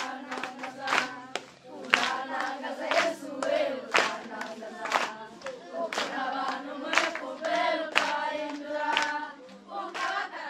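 A group of children singing a French worship song together, clapping their hands in time about once a second.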